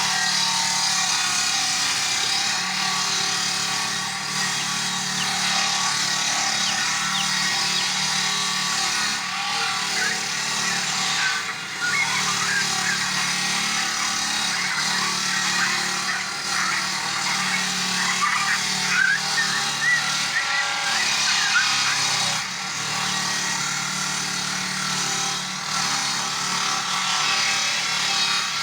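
Chainsaw engine running steadily at high speed while cutting wood, with a constant engine note under the hiss of the chain.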